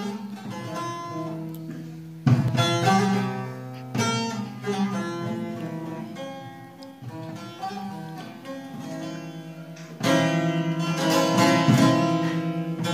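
Bağlama (long-necked Turkish saz) played solo: a picked melody over ringing low strings, with louder strummed passages coming in about two seconds in and again about ten seconds in.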